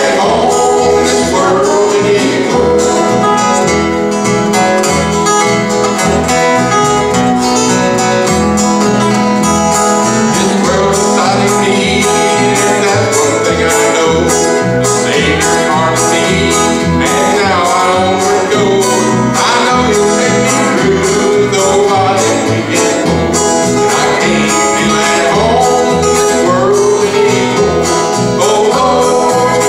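Country gospel band playing: Zum pedal steel guitar, acoustic guitar and upright bass.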